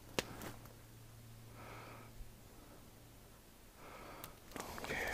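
A hiker breathing hard, two or three audible breaths, with a few light clicks of footsteps on the forest floor, one just after the start and several near the end.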